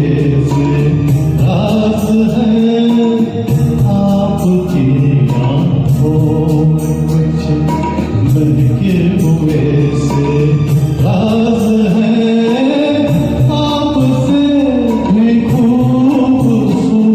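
Music from a Hindi film song performance: a continuous melodic passage.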